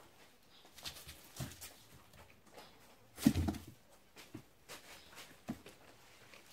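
Kittens scrambling and batting in dry straw on cardboard boxes: scattered rustles and scratches, with one louder thump a little past three seconds in.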